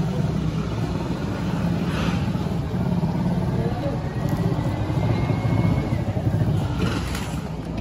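A motor vehicle engine running steadily at idle, a continuous low rumble.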